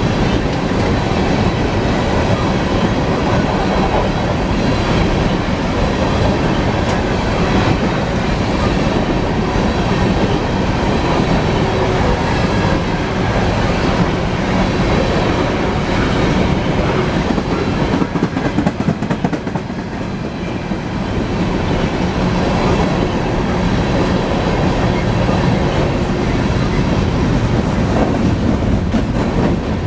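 Coal train's hopper cars rolling past, a steady rumble of steel wheels on rail with clickety-clack over the joints. The sound dips briefly about two-thirds of the way through, then comes back up.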